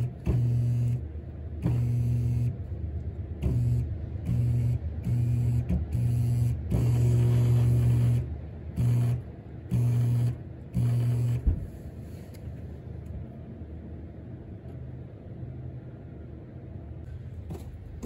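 Oil furnace burner motor and fuel pump run off loose wires in about ten short bursts of steady electric hum, the longest about a second and a half, then stopping with a click. The motor is being bumped on and off to get a pump that will not prime to pull fuel.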